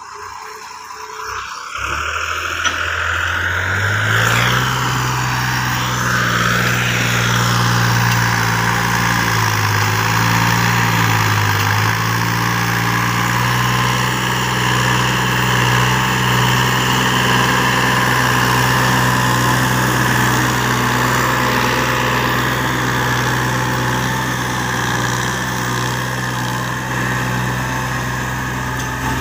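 New Holland 3630 tractor's diesel engine working under load, pulling a trailer heaped with sugarcane. The engine picks up and rises in pitch about two to four seconds in, then runs as a steady low drone, wavering briefly around the ten-second mark.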